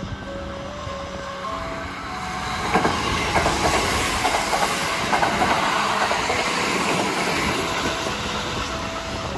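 Kintetsu 23000-series Iseshima Liner limited express train passing along the platform. The rush of wheels and the clickety-clack of rail joints build from about three seconds in, then ease off toward the end.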